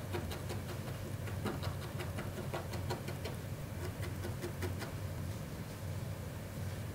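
Felting needle jabbing repeatedly into wool fiber: a run of small, irregular pokes and scratches, several a second, over a low steady hum.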